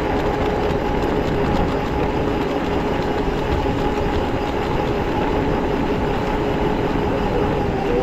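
Quad bike engine running at a steady pace while riding, a constant drone over a rush of road and wind noise.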